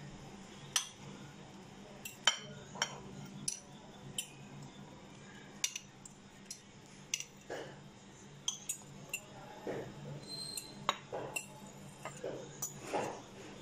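A metal spoon clinking and scraping against a china bowl while canned fruit pieces are scooped out: irregular sharp clinks, with a few softer, duller knocks in the second half, over a faint steady low hum.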